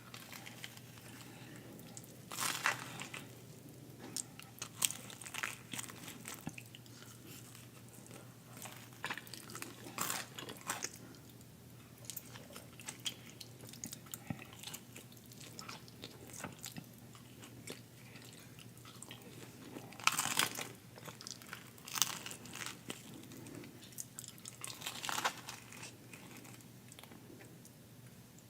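Close-miked mukbang eating: bites and chewing, with sharp crunches scattered through, the loudest about two and a half seconds in, around ten seconds, and in a cluster from about twenty to twenty-five seconds in.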